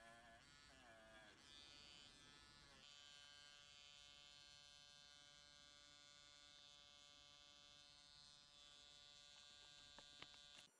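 Handheld electric rotary tool (KENOH Router Master 2) running faintly with a polishing bit, its pitch wavering under load for the first few seconds as it buffs rust off a flat metal burner ring, then running at a steady pitch. A couple of clicks near the end as it cuts off.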